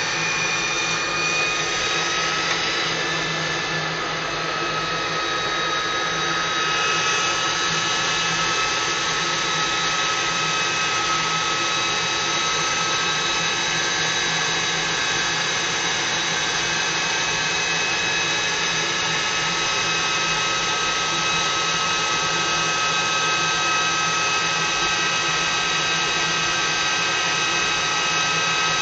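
Aircraft engine heard from inside the cockpit during a takeoff roll: a steady whine of several high tones over a rushing noise. The tones shift slightly about six or seven seconds in.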